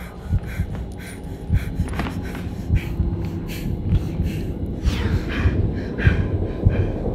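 A distressed woman sobbing and gasping in short, ragged breaths, over a low rumble that grows louder near the end.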